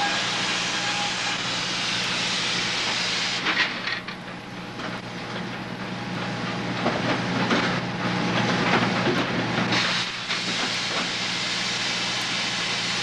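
Sawmill machinery running: a steady hissing din over a low hum. From about three and a half to ten seconds in, irregular knocks and clanks of machinery join in.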